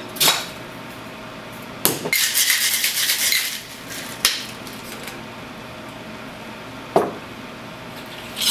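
Cocktail shaker being shaken: a couple of sharp knocks, then ice rattling fast inside the shaker for about a second and a half, followed by two more single knocks of the shaker.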